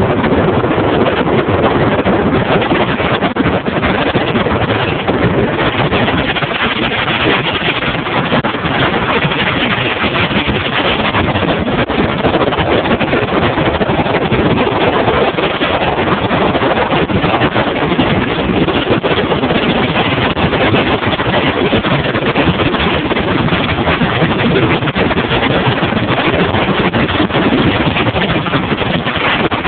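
Bass boat running under power across open water: a loud, steady rush of wind over the phone microphone blended with motor and hull-on-water noise.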